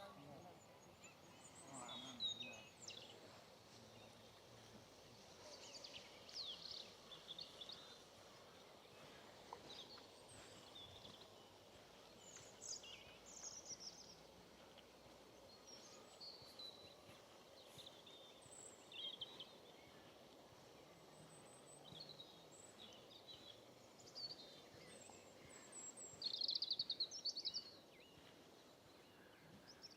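Several small birds singing and calling, with short chirps and phrases scattered throughout and a louder rapid trill near the end, over faint steady outdoor background noise.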